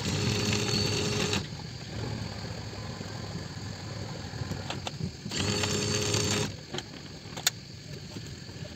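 A small electric motor on the boat whirring in two bursts of about a second each, the second about five seconds in, with a low steady hum underneath.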